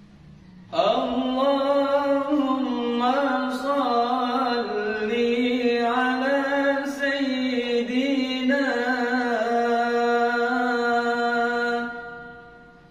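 A man chanting the Arabic sholawat (blessing on the Prophet Muhammad) unaccompanied, in one long, slowly ornamented melodic phrase that starts about a second in and fades out near the end.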